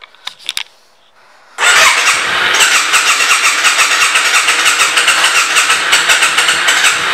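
1997 Yamaha Virago's V-twin engine starting up about a second and a half in, after a few sharp clicks, then running steadily with an even pulsing beat.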